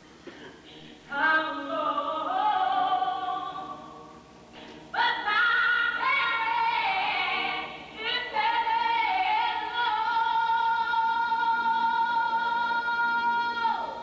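Choral singing, several voices in harmony. Phrases enter about one and five seconds in, then a long chord is held until near the end, where it slides down and stops.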